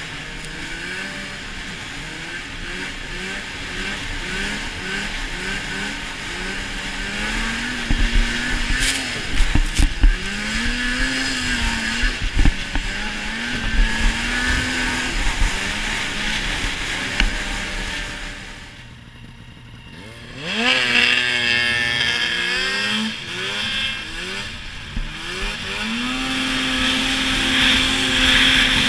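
Polaris snowmobile engine running under throttle, its pitch rising and falling with each change of throttle. About two-thirds through it drops briefly almost to idle, then revs sharply back up and holds a steady high pitch near the end. A few sharp knocks come about a third of the way in.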